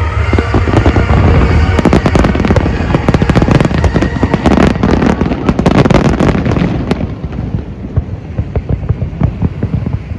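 Fireworks display: a dense barrage of shells bursting, with rapid crackling and popping over a low rumble. The crackle thins out about seven seconds in, and music can be heard underneath.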